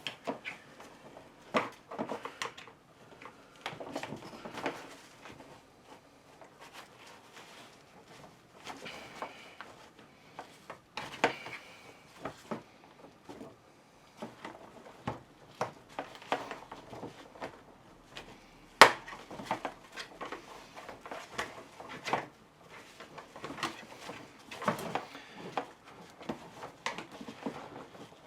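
Scattered clicks, taps and scrapes of pry tools working at the plastic parts of a telescopic suitcase handle, with one sharp click about two-thirds of the way through the loudest.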